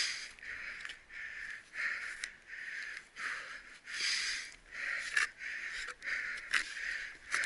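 A person breathing hard close to the microphone: quick, even, airy breaths in and out, about three every two seconds, with a few faint clicks among them.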